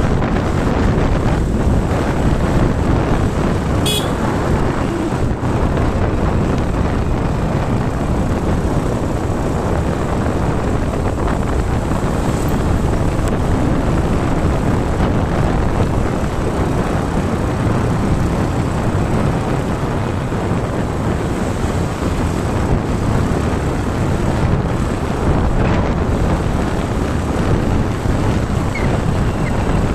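Steady rush of wind and road noise from a moving vehicle, with a short high-pitched sound about four seconds in.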